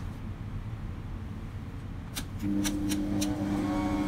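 Stand mixer running with a low steady hum, with a few clicks about two seconds in. Background music with long held notes comes in about halfway.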